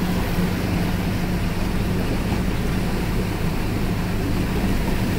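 Truck engine running steadily at low speed while driving through floodwater, with the water rushing and swishing around the truck.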